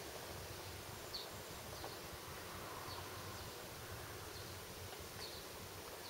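Faint outdoor ambience: a steady even hiss with a few faint, short high chirps scattered through it.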